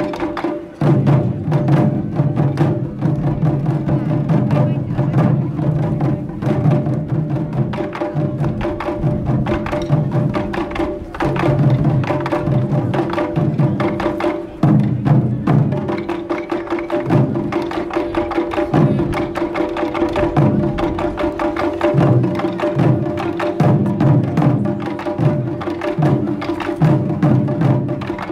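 Children's taiko ensemble striking large nagado-daiko barrel drums with bachi sticks: loud, fast, continuous drumming in repeating rhythmic phrases.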